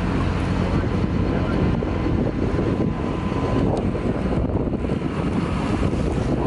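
Boat engine running steadily, with wind buffeting the microphone and a wash of sea noise.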